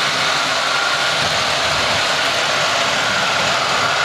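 Model railway trains running on the layout: a steady mechanical whirr of locomotive motors and wheels on track, with a faint steady high whine.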